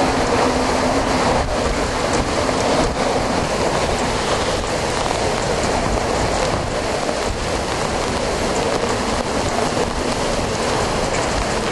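Wind and heavy rain of a tropical storm, a loud, steady rushing noise with faint irregular knocks every second or two.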